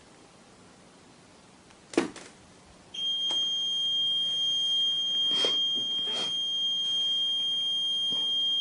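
A sharp click, then about a second later a steady high-pitched alarm tone from the Galaxy intruder alarm system starts and holds without a break: the exit tone that sounds while the alarm is being set. A few faint clicks sound over it.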